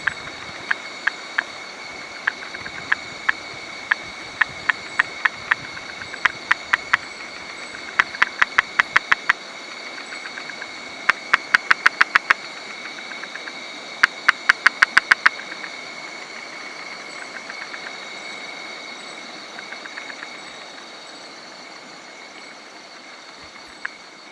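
Kuranda tree frog calling: sharp clicking notes, well spaced at first, then in quick runs of about eight notes, over a steady high-pitched background hum.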